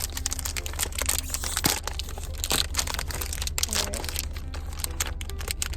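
Close-up handling of small plastic fidget toys and their wrappers: crinkling and crunching with many irregular clicks, over a steady low hum.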